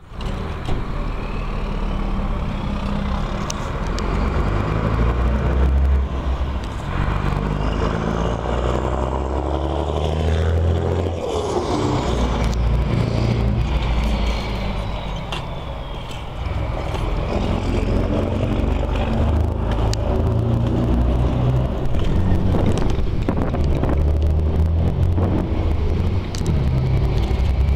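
DAF CF truck's diesel engine roaring as the tractor unit is driven away hard, its revs rising and falling repeatedly.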